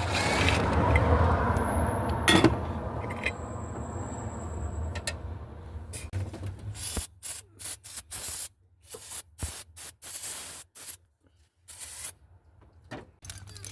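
Aerosol can of starter fluid spraying in a series of short bursts into the open intake of a 1990 Chevy K1500's 5.7 L engine, a test of whether its crank-no-start is a fuel-delivery fault such as a failing fuel pump. A rushing noise fades away over the first few seconds before the bursts begin.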